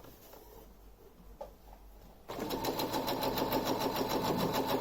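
Domestic Brother sewing machine starting up about two seconds in and running steadily, stitching a test row of running stitch with a rapid, even needle rhythm.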